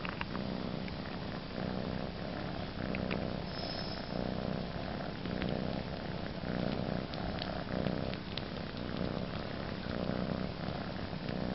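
A cat purring steadily while it sucks on a blanket, the purr swelling and easing about once a second with each breath. Small soft clicks of sucking on the fabric come through over the purr.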